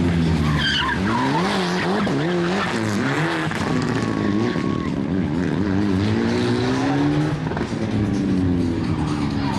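Rally car engines revving hard and dropping off in quick swings as the cars are thrown through a tight chicane, the engine note climbing again later. Tyres squeal for about a second around four seconds in.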